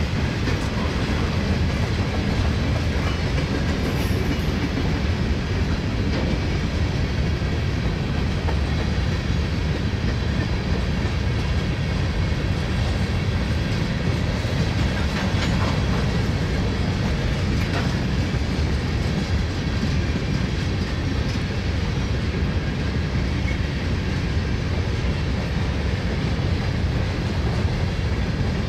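Covered hopper cars of a freight train rolling past: a steady low rumble of steel wheels on the rails.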